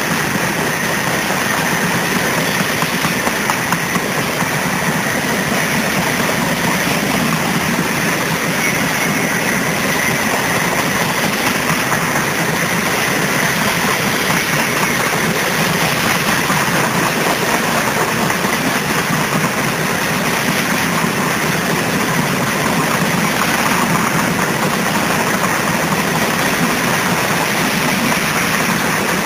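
Freight train of covered hopper cars rolling past close by: a steady rumble of steel wheels on rail, with a faint high whine running under it.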